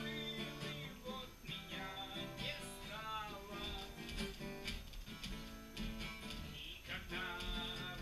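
Acoustic guitar strummed, playing the chords of a song; the sound is quiet.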